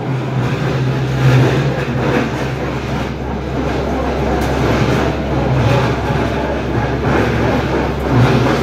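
Rotary piling rig drilling a bore hole: its diesel engine runs steadily with a low hum under loud mechanical noise from the drill drive and Kelly bar. The engine hum swells a few times, about a second in, about five and a half seconds in, and near the end.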